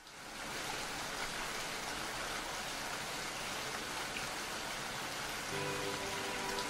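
Steady rain falling, fading in at the start. About five and a half seconds in, soft held music notes come in over it.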